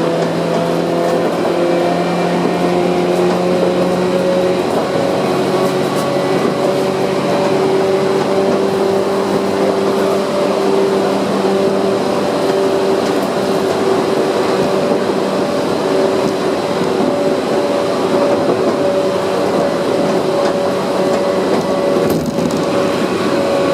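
Tokyu 8500 series electric train running between stations: steady rumble with a whine from the traction motors and gearing, two tones slowly rising in pitch over the first ten seconds and then holding steady. A lower hum drops out about four seconds in.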